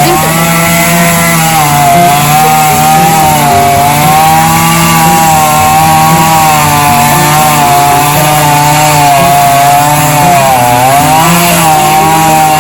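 Chainsaw running at high speed, cutting wood, its pitch wavering slightly under load. It dips briefly about ten seconds in and picks up again.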